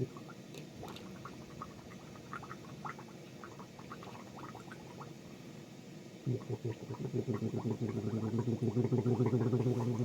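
A person gargling: a low, steady-pitched, fluttering gargle starts about six seconds in and keeps going, after several seconds of faint small clicks.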